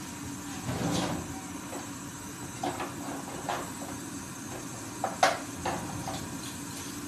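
Oil heating in a frying pan on a gas burner at high flame: a steady hiss with a handful of scattered sharp pops and clicks, the loudest about two-thirds of the way through, and a duller knock about a second in.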